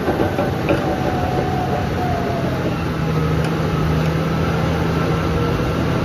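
Caterpillar D11 bulldozer's diesel engine running steadily under load, with the clatter of its steel tracks as it moves. A low steady hum comes in about halfway through.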